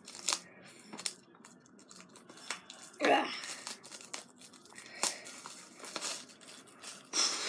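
Plastic shrink-wrap on a DVD box set crinkling and tearing as it is pulled off by hand: scattered crackles, with louder bursts about three seconds in and near the end.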